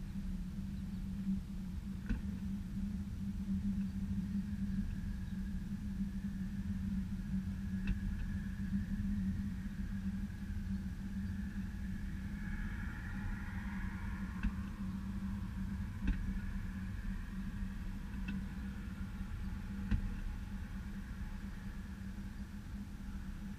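Velomobile rolling along a road, a steady low rumble of tyres and drivetrain carried through the shell, with a few short knocks along the way. A fainter higher whine swells and fades about halfway through.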